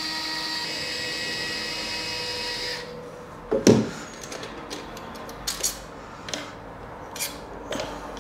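Bosch cordless screwdriver motor whining steadily as it backs out a socket faceplate screw, stopping a little under three seconds in. Then several short knocks and clicks as the plastic faceplate is pulled away from its back box.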